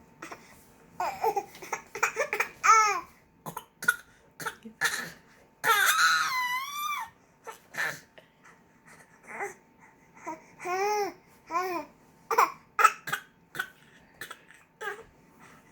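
A baby making short, deliberate fake coughs between high-pitched squeals and giggly babbling. There is a long squeal about six seconds in and a quick run of giggles near eleven seconds.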